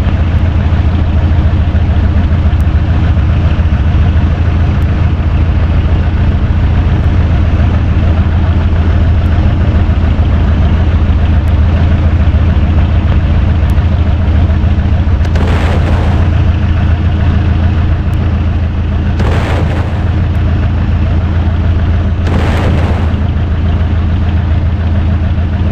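Electric fan running close to the microphone: a loud, steady low rumble of motor hum and blowing air buffeting the mic, with three short bursts of noise in the second half.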